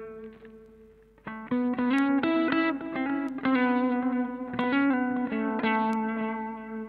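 Electric guitar played through a Mooer GE100 multi-effects unit on its JC AMP preset, a Roland Jazz Chorus amp model, with modulation on. A chord rings out and fades. From about a second and a half in comes a short phrase of plucked notes and chord changes, ending on a ringing chord.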